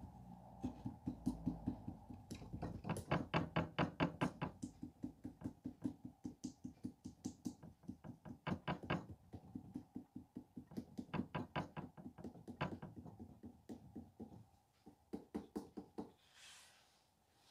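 Terracotta clay figure being tapped by hand to shape it, quick dull knocks about five a second in runs, with a few short pauses between them.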